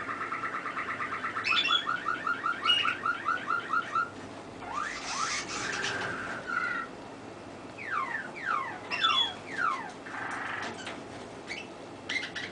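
Domestic canary singing: a long rolling trill of fast repeated notes, then a run of quick falling whistles partway through, followed by another short trill and scattered chirps.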